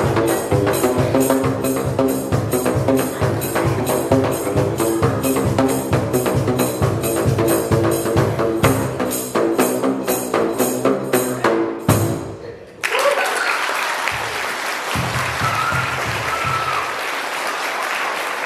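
Home-made drum instrument of plastic drain pipes of different lengths, struck on the open pipe ends with flip-flops: a fast rhythmic run of slaps, each with its own pitched note, ending with a last hit about twelve seconds in. Then an audience of children applauds, with a few voices among the clapping.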